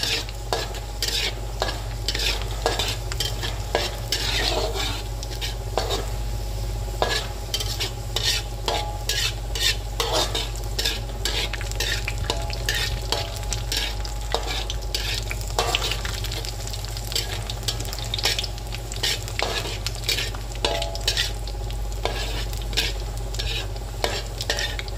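Sliced shallots sizzling in hot oil in a wok, with a metal spatula scraping and clinking against the pan again and again as they are stirred. The shallots are frying into bawang goreng and starting to brown.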